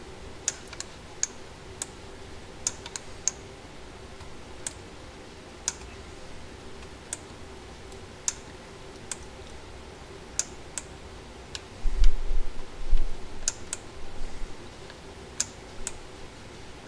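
Scattered single clicks of a computer keyboard and mouse, roughly one a second at uneven intervals, over a steady low hum. About twelve seconds in, a low rumbling thump lasts about a second and is the loudest sound.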